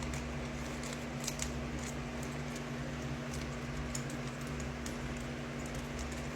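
Scattered light clicks and taps as small toy packaging is handled and cut open with scissors, over a steady low electrical hum.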